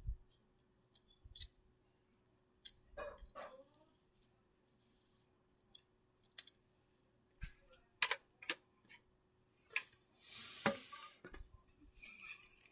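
Scattered small plastic clicks and taps from handling a PSP UMD game disc and the PSP handheld. A short rustle comes about ten seconds in.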